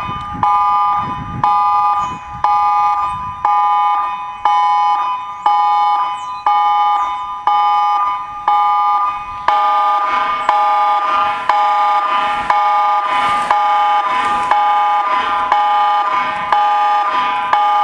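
Emergency alert tone for a tsunami warning: a chord of steady high tones pulsing about once a second. About nine and a half seconds in, it grows fuller as further tones join.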